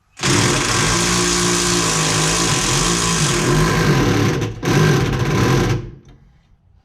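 Impact wrench running and hammering on a bolt, in two bursts: one of about four seconds, then a short second burst after a brief pause.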